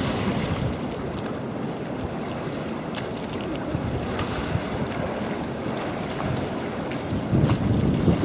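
Water splashing and churning as a polar bear swims and lunges through its pool after live fish, with wind on the microphone. It is louder at the start and again near the end.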